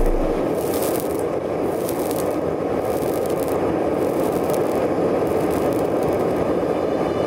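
Propane forge burners running steadily, a constant rushing hiss as the blade is heated.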